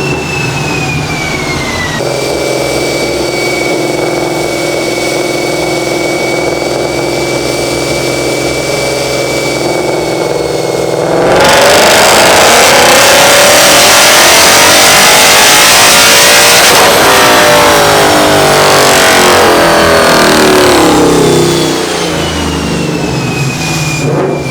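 Ford Mustang 5.0 V8 with full bolt-ons running on a chassis dyno. It runs steadily in gear for about eleven seconds, then goes to full throttle, much louder and rising in pitch for about six seconds, then falls in pitch as it coasts down, settling back to steady running near the end. This is a full-load power pull on the car's 93-octane tune.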